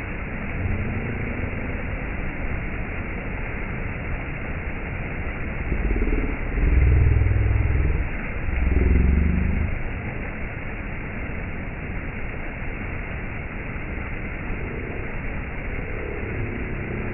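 Waterfall rushing: a steady hiss of falling water, with a louder low rumble swelling twice midway.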